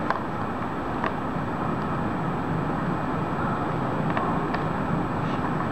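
Steady background noise, with a few light clicks and taps as a Lightning charging connector is handled and plugged into an iPad.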